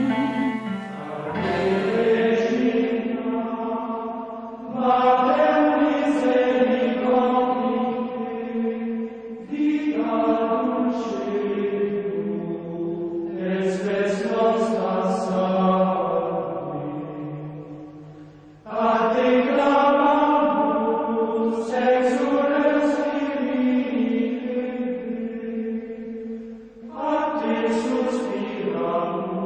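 Background music: slow, chant-like singing that holds long notes in phrases a few seconds long, with short breaks between phrases.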